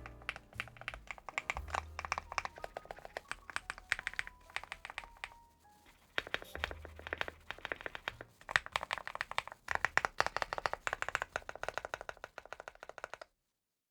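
Fast typing on a CIDOO V75 Plus mechanical keyboard: rapid runs of keystroke clacks with a short pause about six seconds in, stopping about a second before the end. Faint background music sits underneath.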